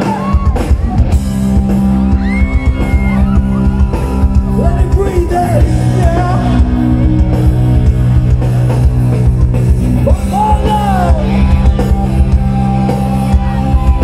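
Live rock band playing through large PA speakers, drums, bass and guitars under a male lead singer, heard from within the crowd. The drums come in at the very start.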